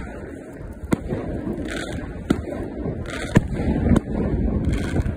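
Fireworks bursting overhead: three sharp bangs, the loudest a little past the middle, over a steady rough rumble of wind on the microphone.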